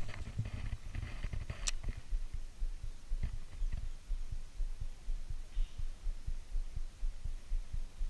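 Low, irregular thumps and rumble on an action camera's microphone, with one sharp click about two seconds in.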